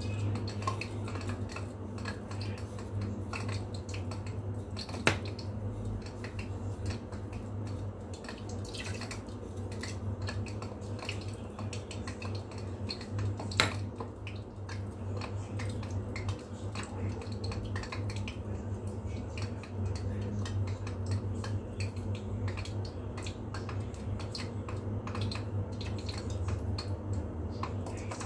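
Small clicks and taps of hands handling dough balls and a plate of sesame seeds, with two sharper knocks on the dish, about five and fourteen seconds in, over a steady low hum.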